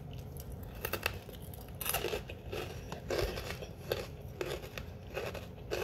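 Close-up chewing of a crunchy Turkish mini breadstick topped with a raspberry: a steady run of crisp crunches, about two or three a second.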